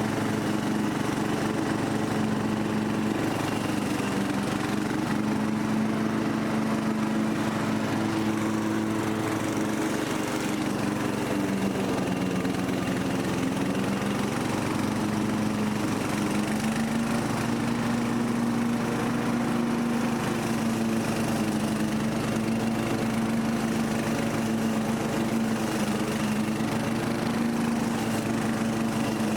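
Newly rebuilt Briggs & Stratton 17.5 HP lawn mower engine running steadily on a test run. Its speed sags a little about twelve seconds in and picks back up a few seconds later.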